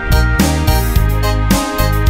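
Music from a karaoke song: a band backing with a bass line and a steady beat of about two strokes a second.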